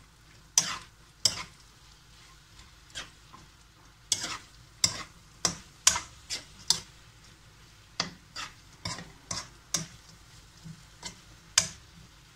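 A spatula scraping and knocking against a wok as fried onions and chickpeas are stirred: short sharp scrapes in irregular runs, some twenty in all, with brief pauses between.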